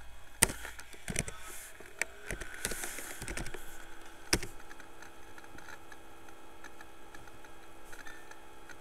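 Computer keyboard being typed on: a few separate keystrokes, then a quick run of keys, ending in one louder click a little past four seconds in. After that only a faint steady hum remains.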